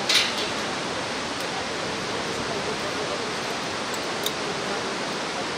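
Steady, even rush of a whitewater river's rapids heard from high above, with a brief sharp noise just after the start and a small click about four seconds in.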